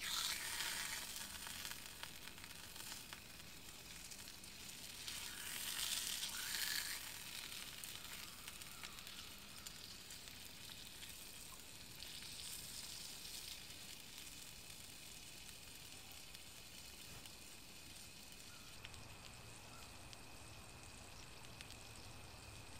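Food sizzling in a cast iron pan over a campfire: a steady hiss with faint pops, swelling louder about five seconds in.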